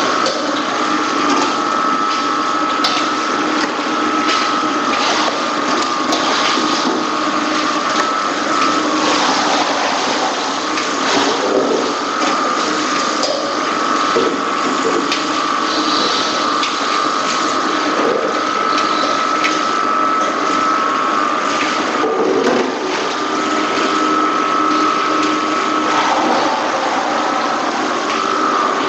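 Steady machinery noise of a poultry-processing line: a constant whine under a running clatter of many small clicks and knocks.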